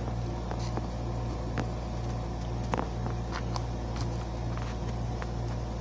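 Steady low mechanical hum, typical of a window air conditioner running, with scattered light clicks and taps throughout.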